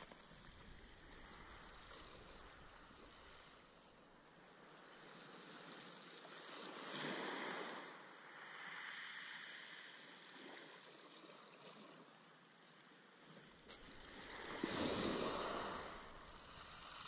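Small waves breaking and washing up a shingle beach, swelling and fading twice, the second wash the louder near the end.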